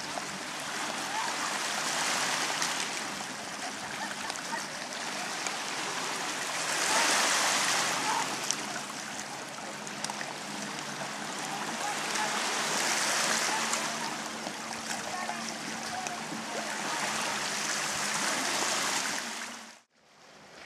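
Small waves washing on the shore in a steady hiss that swells and fades about every five or six seconds, with faint voices in the background; it cuts off suddenly just before the end.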